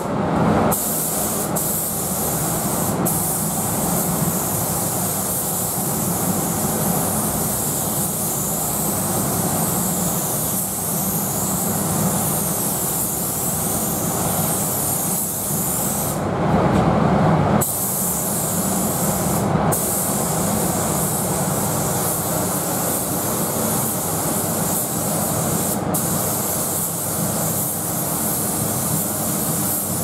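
Gravity-feed paint spray gun hissing steadily as it sprays paint, over a steady low hum. The hiss breaks off briefly a few times, once for over a second about halfway through, as the trigger is released.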